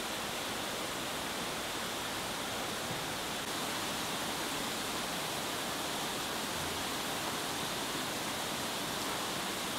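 Steady, even rush of circulating water in indoor koi holding tanks, with no distinct splashes.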